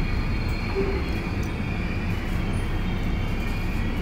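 Seoul Metro Line 1 subway train running between stations, heard from inside the carriage: a steady low rumble with a thin high whine above it.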